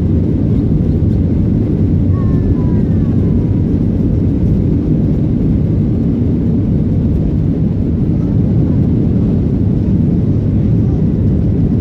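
Jet airliner heard from inside the passenger cabin during its takeoff roll: a steady, loud low roar of the engines and the rolling on the runway.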